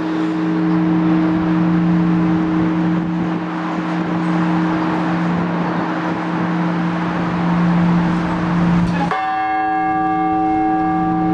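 A large Orthodox church bell, plausibly the weekday blagovest bell, rings on from an earlier stroke with a steady low hum. It is struck once about nine seconds in, bringing back a set of brighter upper tones. A steady background noise lies under it.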